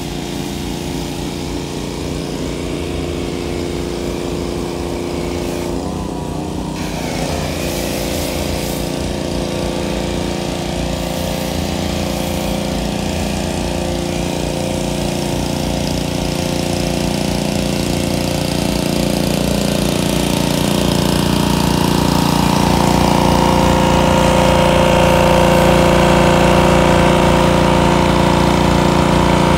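Pressure washer running steadily, driving a foam cannon that sprays foam onto a car. It grows gradually louder through the second half.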